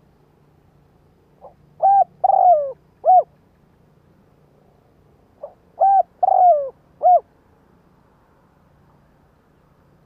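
Spotted dove cooing: two identical phrases about four seconds apart, each a soft short note followed by three loud coos, the middle coo longer and sliding down in pitch.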